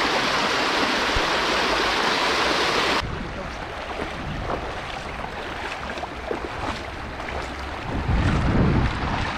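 Fast river water rushing in a loud, steady hiss. About three seconds in it cuts abruptly to a quieter wash with faint scattered clicks, and near the end wind buffets the microphone.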